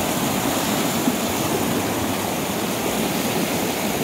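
A fast-flowing river rushing over a shallow rocky ledge: a steady, even rush of white water.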